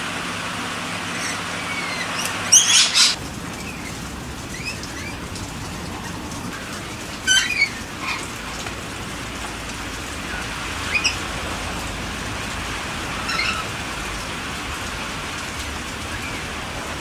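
Steady rain falling, with short, sharp bird calls breaking through it several times. The loudest calls come about two and a half seconds in and again about seven seconds in.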